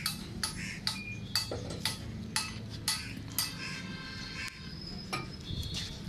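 Hammer striking metal at a steady pace of about two blows a second, each a sharp clink, over a low steady hum.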